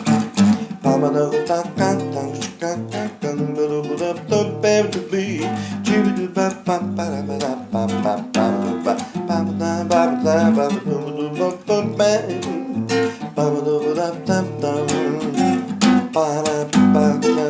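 Instrumental passage of a song on acoustic guitar, strummed chords with picked notes and no lyrics sung.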